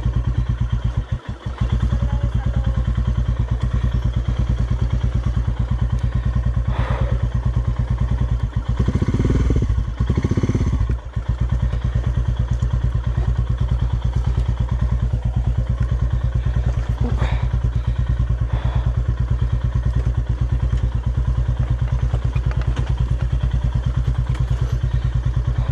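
Royal Enfield Himalayan's single-cylinder engine chugging at low speed on a rough dirt track. The throttle briefly drops off about a second in and the engine gets louder for a couple of seconds near the middle, with a few knocks and clatters from the bike going over ruts.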